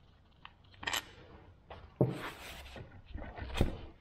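Metal parts of a Muncie four-speed transmission being handled on the bench: three knocks or clunks, the sharpest about two seconds in, with scraping between them as a part at the rear of the case is worked loose.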